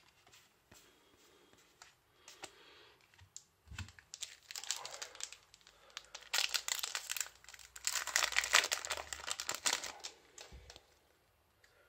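Foil Yu-Gi-Oh booster pack wrapper crinkling loudly as it is handled and torn open, from about four seconds in until near the end; before that, only faint clicks of cards being handled.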